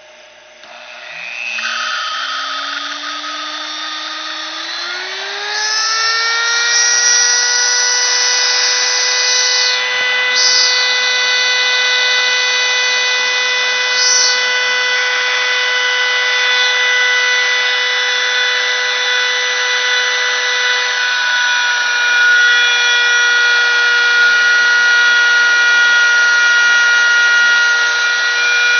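CNC machine's spindle motor spinning up with a rising whine in two steps over the first five seconds or so, then running loud and steady at a high pitch.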